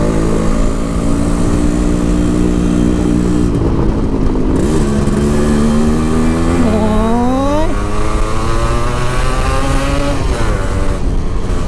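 Yamaha RX135's two-stroke single-cylinder engine pulling the bike along, running steadily and then accelerating with a rising pitch from about six and a half seconds in, dropping back near eight seconds as a gear change.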